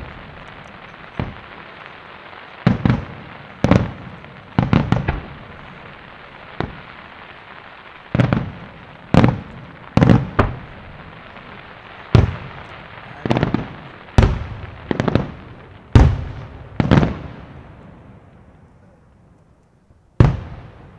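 Aerial firework shells bursting in a steady run of sharp booming reports, roughly one a second and some in quick pairs, each trailing off in echo over a steady hiss. After a lull of about two seconds near the end, one more loud burst.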